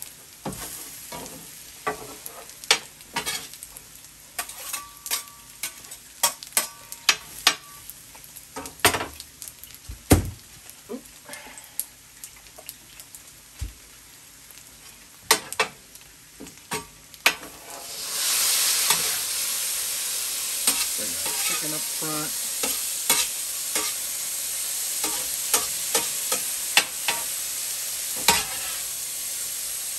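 Metal spatulas clicking, tapping and scraping on a steel flat-top griddle as food is stirred and moved. About two-thirds of the way through, a much louder, steady sizzle of food frying on the hot steel starts and keeps on under the scraping.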